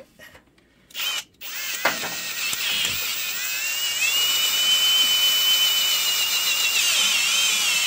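Cordless drill running a sharp 5/16-inch bit into a broken water pump bolt in a cast-iron Pontiac 350 engine block. A short burst about a second in, then a steady run with a motor whine that rises in pitch near the middle and holds, the bit cutting nicely into the bolt.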